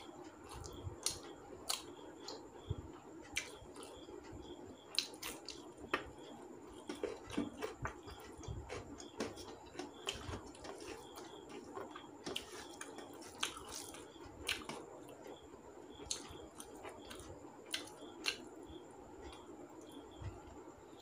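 Close eating sounds: fingers mixing rice and curry on a steel plate, with chewing and wet mouth smacks as irregular soft clicks. A clock ticks faintly and steadily, about twice a second.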